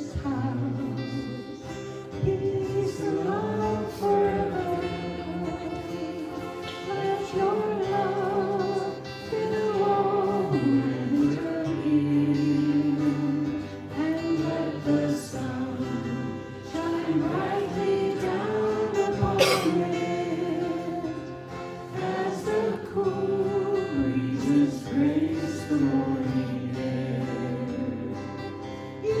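A congregation singing a worship song together with instrumental accompaniment, possibly guitar.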